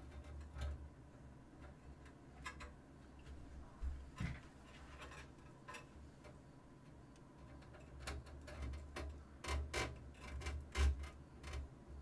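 Scattered light clicks, taps and rustles of hands handling computer cables and reaching into a cardboard parts box. The handling noises cluster and are loudest about ten seconds in, over a low steady hum.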